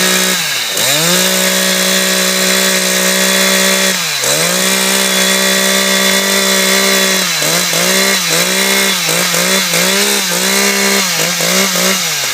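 Two-stroke chainsaw revved at full throttle without cutting, warming up before a competition cut. It holds a steady high pitch, drops off and climbs back twice, then from about seven seconds in is blipped rapidly on and off the throttle, about twice a second.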